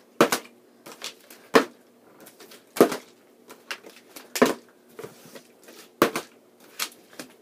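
Plastic water bottles being flipped and landing or falling on a wooden desktop: a sharp knock about every second and a half, with a few weaker knocks between.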